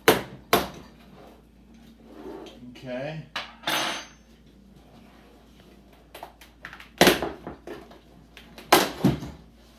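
Sharp clicks and clatter of an LCD monitor panel's metal frame and plastic bezel being pried apart by hand, its locking tabs snapping free: loud snaps at the start and again near the end, with a rasping scrape about four seconds in.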